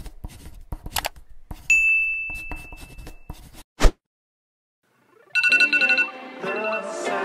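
Logo-intro sound effects: light clicks and a bright chime held for over a second, then one loud sharp click. After a second and a half of silence, a phone alarm ringtone starts with rapid repeated high beeps that turn into a short melody.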